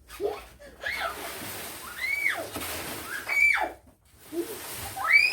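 High-pitched wordless squeals: about four short cries, each rising and then falling in pitch, roughly a second apart.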